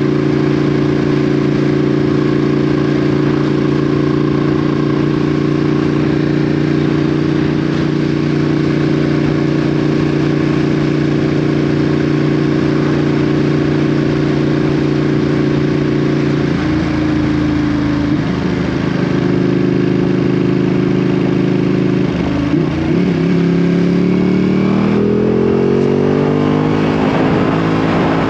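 Ducati Panigale V2's 955 cc L-twin engine through an Akrapovic exhaust, running at steady revs while the motorcycle cruises. About two-thirds of the way through the note changes and dips briefly, then the revs climb steadily as the bike accelerates.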